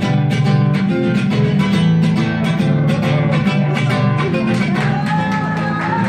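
Mariachi band playing without singing: guitars strummed in a steady rhythm under a melody line, with a held high note near the end.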